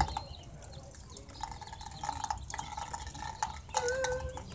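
Water drops dripping and tapping irregularly, like a little drummer.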